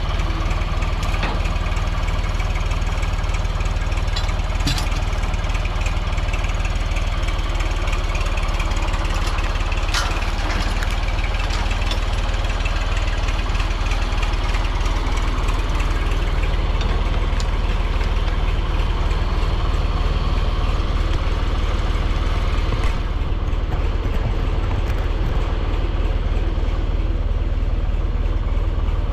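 Vintage John Deere tractor engine running steadily, with a couple of sharp knocks over it.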